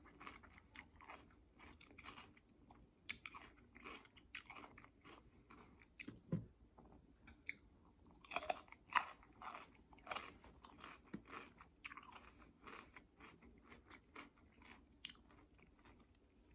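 Close-miked chewing and mouth sounds of a person eating soft breakfast enchiladas, with irregular wet smacks and a few louder crunchy bites near the middle.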